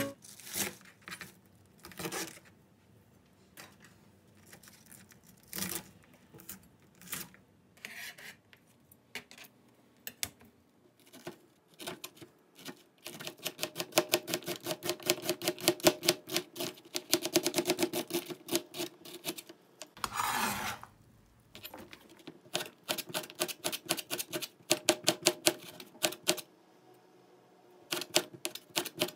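Kitchen knife cutting vegetables on a plastic cutting board. It starts with scattered single cuts through garlic chives, then from about halfway turns into runs of quick, even strokes slicing onion and green onion, with a brief scrape in between. The knife is getting dull.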